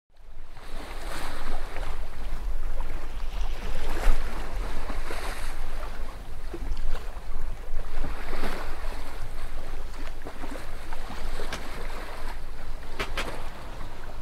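Sea water washing and splashing against a boat's hull under way, surging every second or two, with wind rumbling on the microphone. There are two short sharp sounds near the end.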